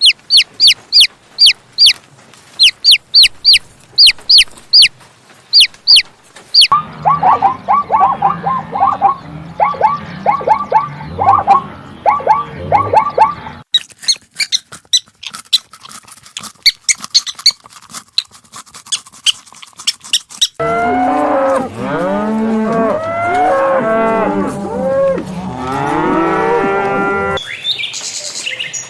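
A string of different animal calls that changes abruptly every few seconds. First come sharp high chirps repeated in quick succession, then a series of repeated mid-pitched calls. After more high chirps, the last stretch is many animals calling over one another with rising and falling calls, which includes cattle mooing.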